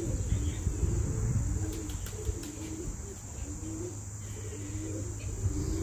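Steady high-pitched chirring of crickets, with low pigeon cooing repeating about once a second and a low rumble underneath.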